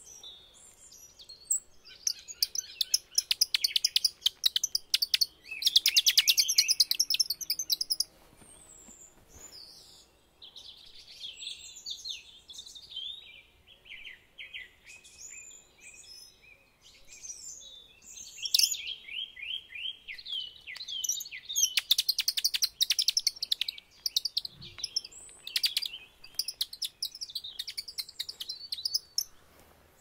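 High, rapid bird-like chirping and twittering in long bursts separated by quieter pauses, loudest over the first several seconds and again in the second half, with a run of falling chirps a little past the middle.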